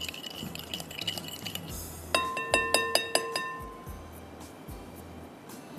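Metal whisk stirring marinade in a glass mixing bowl, clinking against the glass. About two seconds in, a quick run of taps on the bowl sets it ringing, the loudest part, and the ring fades away after a second and a half.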